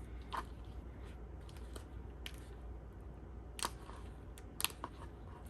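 A few light, scattered clicks and taps from handling plastic headphone parts as a replacement ear pad is lined up on a headphone earcup.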